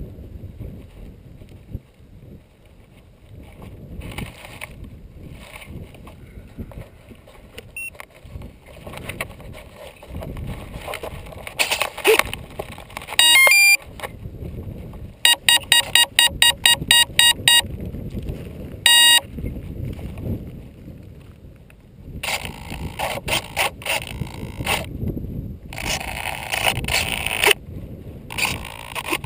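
Wind buffeting the camera microphone throughout. About halfway through comes a quick run of about ten short electronic beeps, roughly four a second, with a few other single tones around it. Louder rustling bursts follow near the end.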